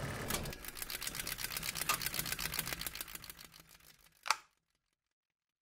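Rapid mechanical clicking sound effect that fades away over about four seconds and ends in one sharper click.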